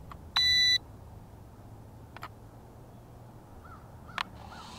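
A single short electronic beep, high and steady in pitch, about half a second in, over a low steady background hum.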